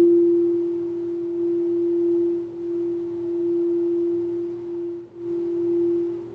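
Singing bowl sounding one steady, pure sustained tone with slow swells in volume, dipping briefly about five seconds in before sounding again.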